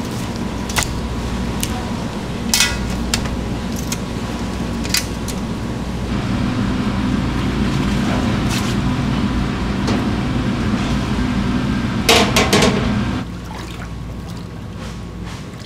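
Kitchen noise: a steady low hum with scattered clinks and knocks of dishes and utensils, and a short burst of clatter about twelve seconds in, after which the hum drops.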